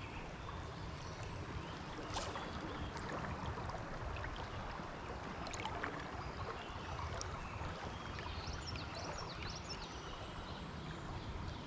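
Trout stream running steadily, a constant rush of flowing water, with a few faint clicks.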